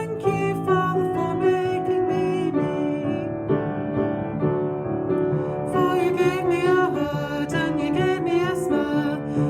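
A children's action song playing: a female voice singing over piano backing.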